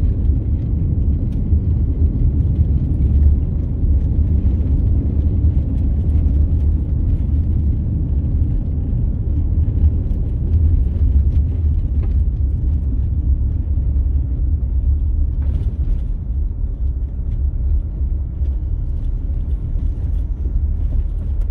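Car driving on a gravel road, heard from inside the cabin: a steady low rumble of tyres and engine, with a couple of faint knocks. It gets slightly quieter near the end.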